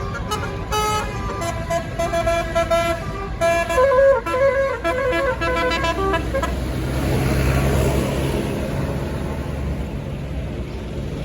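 Tour bus's basuri telolet horn playing a quick melody of stepped notes for about six seconds. After that a bus engine and road noise swell and then fade.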